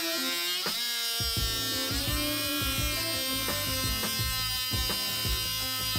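Small electric motor driving the 3D-printed herringbone gears and twin flywheels of a prototype flywheel airsoft gun, running with a buzzing whine that climbs in pitch as it spins up over the first second or two, then holds steady. Background music plays along with it.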